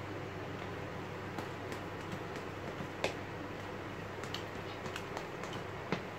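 Rubber-soled sneakers stepping and shifting on a glazed ceramic tile floor: scattered light taps and scuffs, the sharpest about three seconds in, over a steady low hum.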